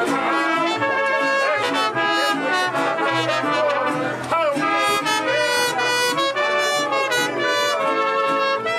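Mariachi band playing a slow melody, with trumpets carrying the tune over the strings.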